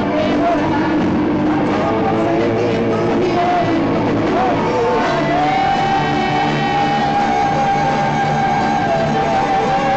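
Live rock band playing loudly: a male singer sings over electric guitars. One long note is held for about four seconds in the second half.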